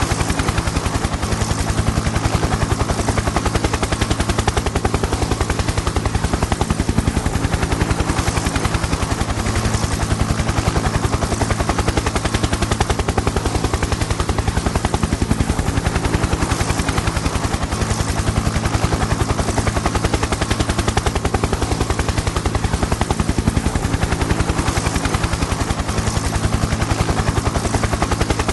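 Helicopter in flight: a fast, steady beat of rotor blades over a continuous engine drone and rushing air noise.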